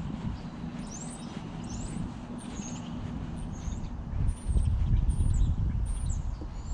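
Small birds chirping in a quick series of short, high sweeping notes, over a low rumble that grows louder about two-thirds of the way through.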